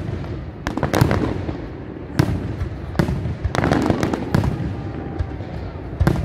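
Aerial fireworks display: shells bursting in a string of sharp bangs roughly a second apart, with a run of quick crackling near the middle.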